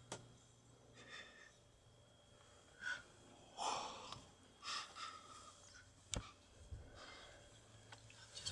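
Hushed breaths and whispers from people close to the microphone, in a handful of short soft bursts, over a faint steady low hum, with one sharp click about six seconds in.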